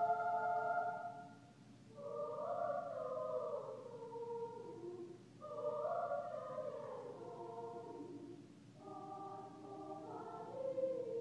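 Choir singing in full harmony, in phrases of a few seconds with brief breaths between them; a held chord ends about a second in, and the following lines each slide downward in pitch.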